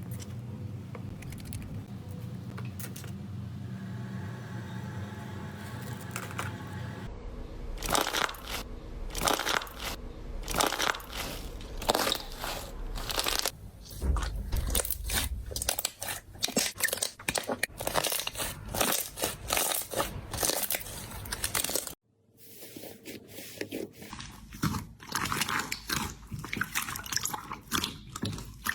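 Crunchy slime being squeezed and pressed by hand, giving dense crackling and popping clicks. It follows a steady low hum in the first seven seconds, with a brief break about 22 seconds in.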